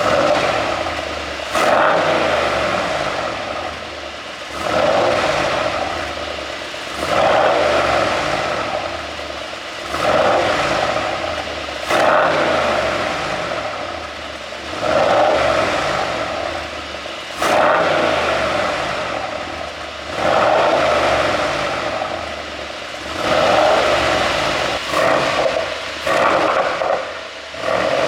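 2018 Mercedes-AMG E63's twin-turbo V8 being revved over and over, about a dozen blips of the throttle every two to three seconds, each rising and falling back toward idle. Sharp pops and crackles from the exhaust on several of the falls come from a pop-and-crackle tune. The revs come quicker near the end.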